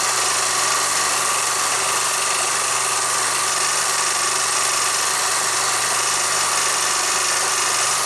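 Steady hum and hiss of a running film projector and its worn soundtrack, even and unbroken, with no separate work sounds.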